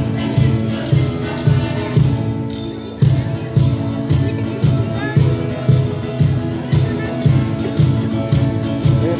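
Children's folk ensemble playing a tune on xylophones, with guitar and a cajón keeping a steady beat of about two strokes a second. The beat drops out briefly about two and a half seconds in, then carries on.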